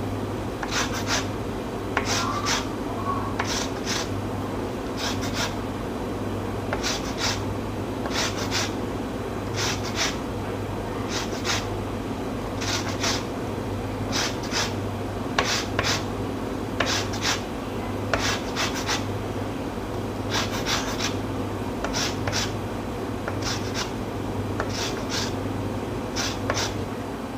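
Orange rind being grated on a metal rasp zester: repeated short scraping strokes, mostly two in quick succession about every second and a half. A steady low hum runs underneath.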